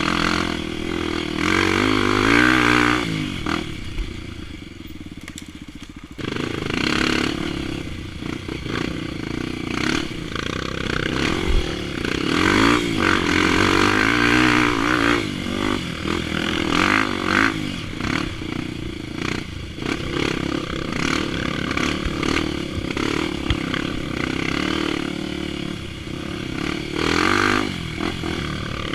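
Honda XR250 Tornado's single-cylinder trail-bike engine, bored out to 280cc and running through an aftermarket exhaust, revving up and down as it is ridden over a dirt trail, with rattling and scraping throughout. About four seconds in, the throttle drops off to a low idle for roughly two seconds before it picks up again.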